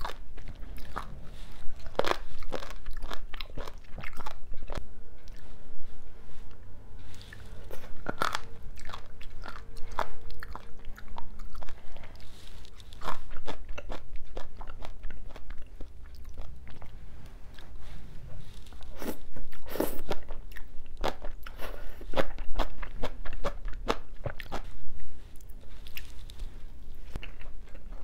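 Close-miked chewing of spicy braised seafood with crisp bean sprouts: an irregular run of sharp crunches and wet mouth sounds.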